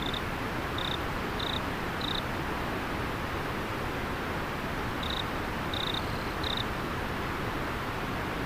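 River water flowing steadily, with a cricket chirping over it in short high chirps: four in quick succession at the start, a pause, then three more about five seconds in.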